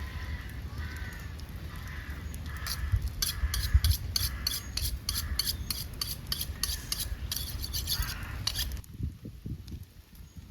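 Rhythmic scraping or rubbing strokes, about three a second, over a low steady rumble; they stop abruptly near the end.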